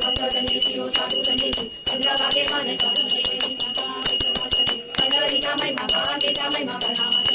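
A puja hand bell rung continuously during an aarti. Its high, steady ring breaks off briefly a few times, over voices singing the aarti hymn.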